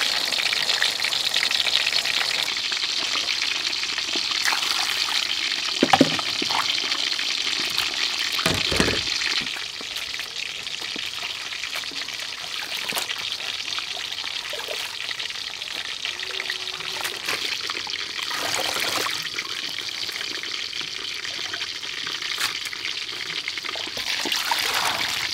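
Hot oil sizzling as a fish fries, a dense hiss with a sharp knock about six seconds in, that drops away about nine seconds in. After it comes softer water sloshing as leafy greens are washed by hand in a steel bowl, and near the end water is poured from a plastic basin into the bowl.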